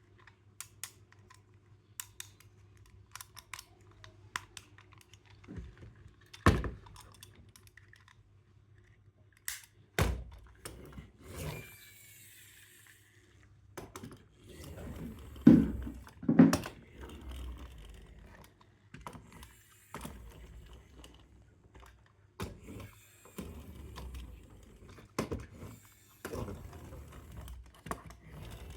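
Handling of a plastic toy excavator and its packaging: scattered light clicks and taps, with a few heavier thumps about a third of the way in and around the middle.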